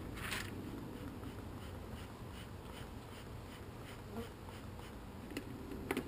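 Steady low buzzing of many agitated honey bees around a hive broken open by a bear, with a short rustle just after the start. Two sharp knocks, like wood on wood, come near the end.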